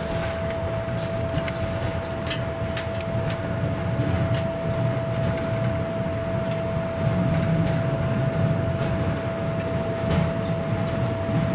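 Diesel railcar running along the track, heard from the driver's cab: a steady low drone of engine and wheels with a few scattered clicks, and a constant whining tone over it.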